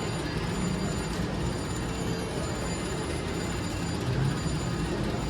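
Casino floor din: a steady wash of slot-machine noise and crowd chatter, with faint electronic machine tones.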